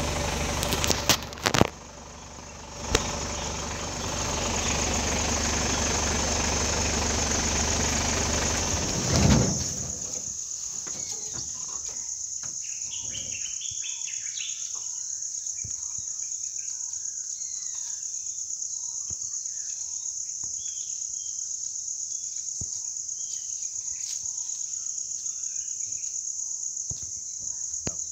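A vehicle engine idling, with a few sharp clicks, then cutting off suddenly about nine seconds in. A steady high-pitched insect drone runs on through the rest, with faint scattered bird chirps once the engine is off.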